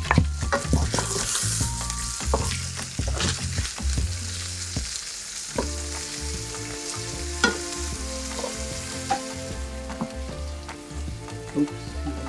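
Flour-dusted Spanish mackerel fillets sizzling as they fry in oil in a pan, with sharp clicks of metal tongs turning them and lifting them onto a plate. The sizzle dies down near the end.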